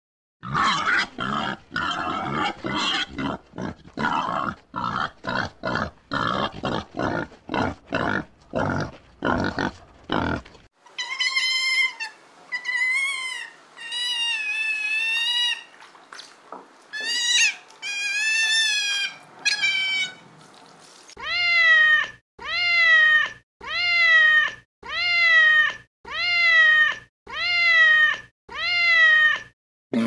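A boar grunting in quick rough bursts for about ten seconds, then otters giving high, wavering chirps and squeaks. Near the end comes a run of about nine high calls, evenly spaced about one a second, each rising and falling.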